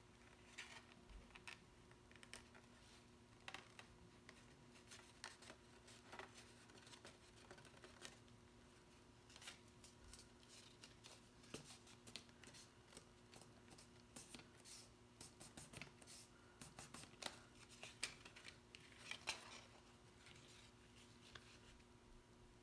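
Faint rustling and crackling of black cardstock being folded and handled, in short scattered clicks that get busier about halfway through, with a few sharper cracks near the end.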